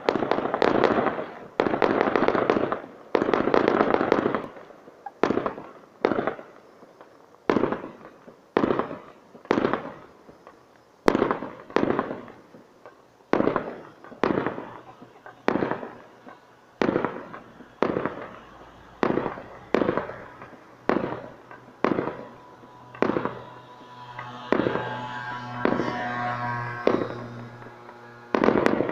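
Fireworks going off: a few seconds of dense crackling at the start, then single loud bangs about once a second, each with a short echoing tail. A steady droning tone sounds under the bangs for a few seconds near the end.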